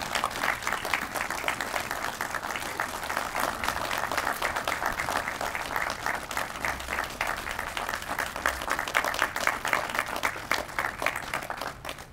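A crowd applauding: dense, steady clapping that stops abruptly right at the end.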